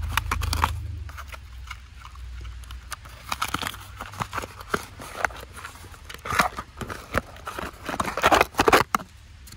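Cardboard toy-box packaging being handled: a fingernail picking and peeling at the tape on the box end, then cardboard and plastic packaging scraping and crinkling as the figure is pulled out, loudest in bursts near the end.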